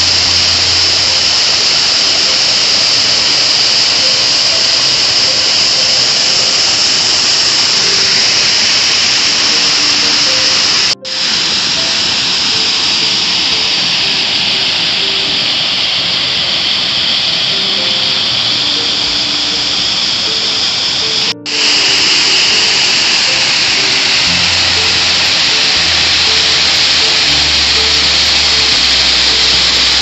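Waterfall rushing steadily over rock, a loud even hiss, with soft background music faintly underneath. The sound drops out for an instant twice.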